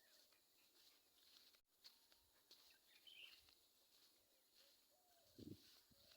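Near silence with a few faint, distant bird chirps now and then, and a soft low thump near the end.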